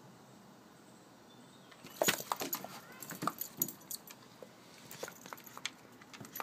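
Border collie pouncing and snapping at a bee on a wooden deck: a quick run of sharp clicks and jingles starting about two seconds in, from its claws on the boards and its collar tags, then scattered clicks as it keeps moving.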